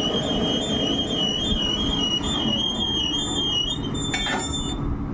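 Engine of a truck-mounted borewell drilling rig running steadily and loud, with a high wavering whine above it that stops about four seconds in. A couple of short metallic clinks follow near the end.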